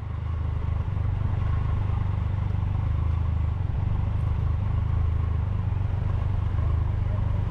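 Triumph Tiger 1200's three-cylinder engine idling steadily while the bike stands still, a loud, even low rumble.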